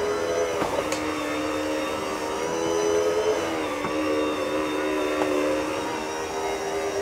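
Bissell SpinWave cordless spin mop's motor running steadily as its two round pads spin over a hard floor, with a brief slight dip in pitch about three and a half seconds in.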